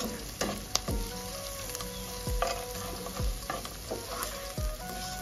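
Cashew nuts and fried onions sizzling in hot oil in a nonstick pot as they go in and are stirred, the spatula knocking and scraping against the pan several times.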